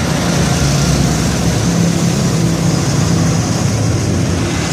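A machine running steadily, a low even drone with a constant hiss above it.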